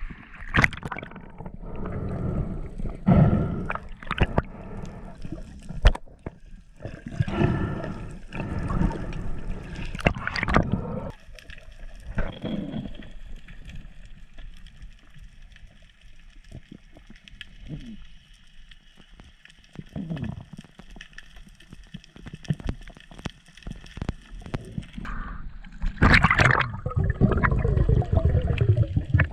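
Choppy seawater sloshing and splashing around a handheld camera at the surface, then the muffled gurgling and bubbling of being underwater as a freediver goes down. A faint steady high hum runs through the quieter middle, and a louder rush of water and bubbles comes near the end.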